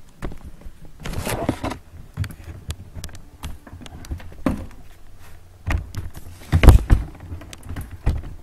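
Camera handling noise: irregular rubbing, scraping and knocks as the camera is gripped and moved about, with the heaviest thumps a little before the end.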